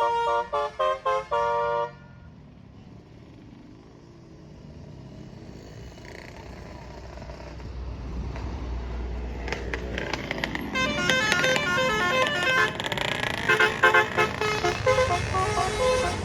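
A bus's telolet horn, a multi-tone musical air horn, plays a quick tune that ends in a few short blasts about two seconds in. Traffic noise follows, then a low engine rumble builds. From about ten seconds in, a louder, busier run of telolet horn notes starts.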